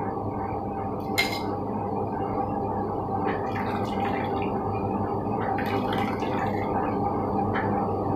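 Wet ground coconut squeezed by hand in a strainer to press out coconut milk: irregular squelches and liquid dribbling into the bowl, with a sharp tap about a second in, all over a steady background hum.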